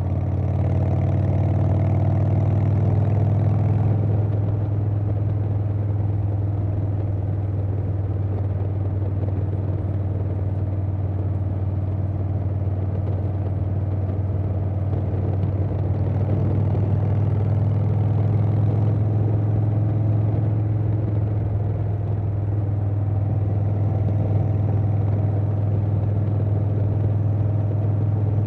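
Harley-Davidson Softail Standard's Milwaukee-Eight V-twin running through a Vance & Hines Big Radius 2-into-2 exhaust while cruising, a steady low engine note with wind noise. It swells slightly a few times as the throttle changes.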